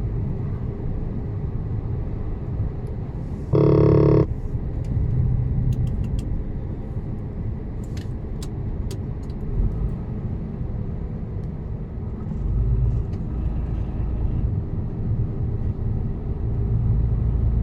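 Mercedes-Benz Actros truck's diesel engine running steadily as a low rumble while driving. One short, loud horn blast sounds about four seconds in.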